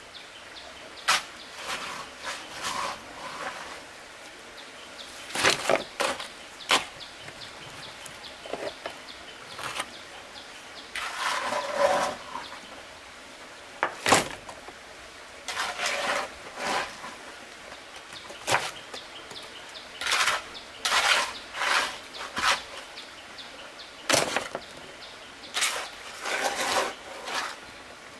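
A steel shovel repeatedly scraping up wet concrete and tossing it into a wooden form, a sharp scrape or slap every second or two, with a longer scrape about twelve seconds in.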